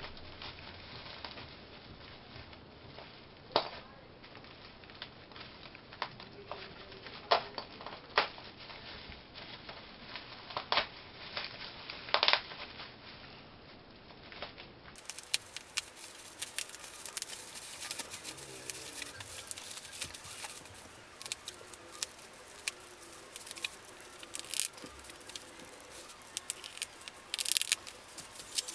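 Packaging being handled and opened by hand: crinkling wrap, some tearing and scattered sharp clicks and taps.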